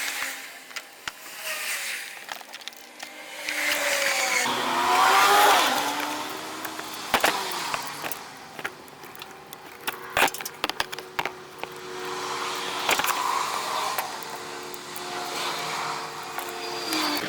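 A vehicle engine running, its pitch climbing and falling a few seconds in and then holding steadier, with scattered sharp clicks and rattles.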